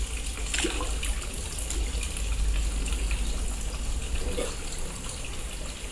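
Water splashing and bubbling steadily in a concrete tilapia tank, with a low rumble underneath.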